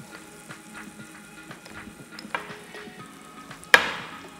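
Breaded stuffed potatoes (papas rellenas) sizzling and crackling as they fry in hot oil. A loud sharp clank about three and a half seconds in, after a smaller one a little past two seconds.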